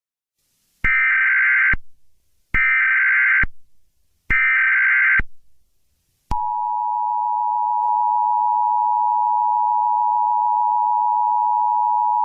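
Emergency Alert System activation tones. Three SAME header bursts of warbling digital data, each just under a second long, are followed about six seconds in by the steady two-tone attention signal. These tones mark the start of an emergency alert.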